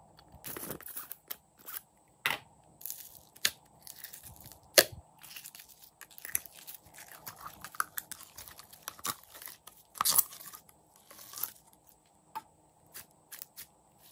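Hands handling a plastic slime container and squeezing stretchy slime out of it: an irregular string of sharp plastic clicks and crackles with sticky squelches. The loudest snap comes about five seconds in, and a burst of crackling follows about ten seconds in.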